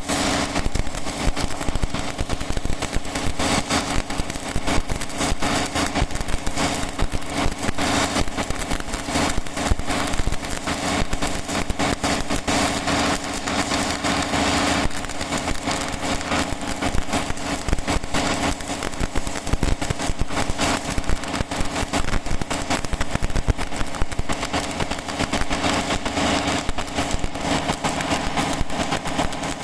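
Stick (shielded metal arc) welding arc running continuously on a horizontal fillet weld, a steady dense crackling sizzle with a constant hum beneath it.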